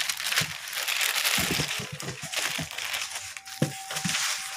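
A clear plastic bag crinkling and rustling as it is handled, with a few light knocks.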